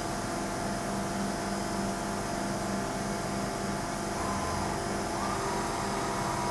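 Deckel Maho DMC 60 U machining centre running a cycle with flood coolant spraying inside its enclosure. Coolant spray gives a steady hiss over a machine hum. A higher whine from the spindle or axis drives comes in about four seconds in and steps up in pitch a second later.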